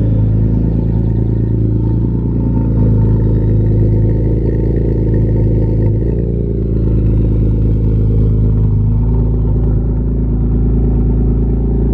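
BMW E46 M3's S54 3.2-litre inline-six idling steadily and loudly while it warms up. This is the first start after cleaning the idle control valve and throttle bodies and fitting new throttle position sensors, and the idle has settled from a little rough to even.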